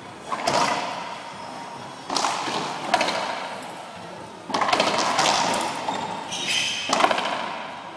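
Racquetball rally: sharp cracks of racquet on ball and of the ball off the court walls, several in a row at uneven gaps, each ringing on in the enclosed court's echo.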